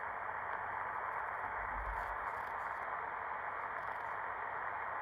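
HamGeek ATS200 portable receiver's speaker giving out a steady, muffled hiss of static, tuned to a frequency with no signal on it.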